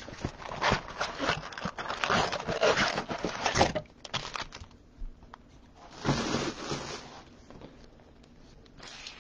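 A cardboard trading-card blaster box being torn open and its wrapped card packs slid out and stacked, a run of rustling, scraping and crinkling with small clicks, then a second burst of rustling about six seconds in.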